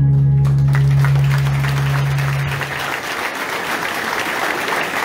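Audience applauding over a long, low held note of music that fades out about halfway through, after which the clapping goes on alone.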